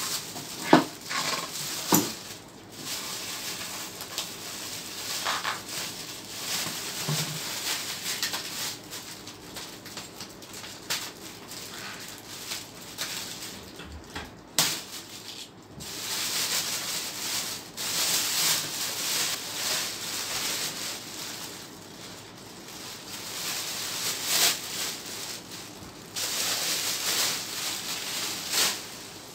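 Clear plastic bag wrapping crinkling and rustling as it is handled and pulled off a speaker, in uneven waves, with a sharp knock about a second in.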